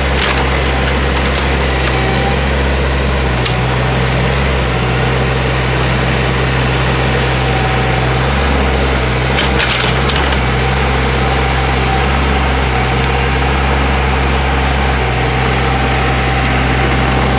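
Excavator's diesel engine running under load as it pushes out trees, with wood cracking and splintering as trunks and roots give way, the sharpest snap about nine and a half seconds in.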